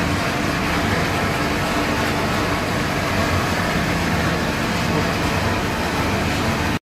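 Steady machine noise, a low hum with a hiss over it, that cuts off abruptly near the end.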